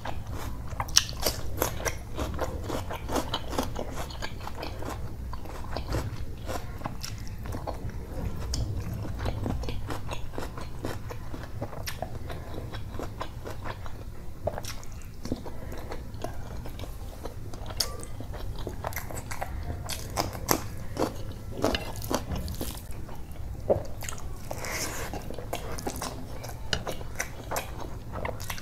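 Close-miked eating: chewing and biting mouthfuls of rice and curry eaten by hand, with crisp crunches of raw cucumber and onion slices. Many small wet clicks and crackles run throughout, over a steady low hum.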